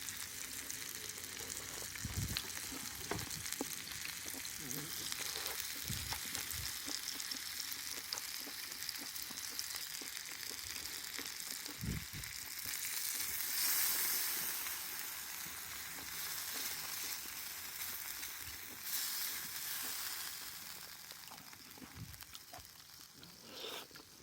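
Pork frying in its fat in a pan over a campfire: a steady sizzle with fine crackles that swells about halfway through, and a few low knocks from the pan being handled.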